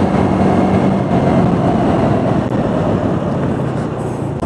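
Steady wind rush over the microphone and road noise from a moving TVS Ntorq scooter at cruising speed, with the engine's even hum underneath.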